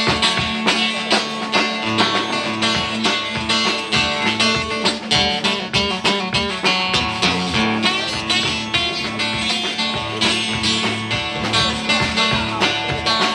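Live blues played on a strummed acoustic guitar, backed by a drum kit keeping a steady beat, without vocals.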